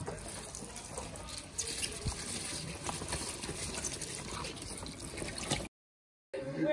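Tap water running onto cocoyam (kontomire) leaves in a stainless steel sink while hands rub and turn the leaves under the stream. The sound cuts out completely for about half a second near the end.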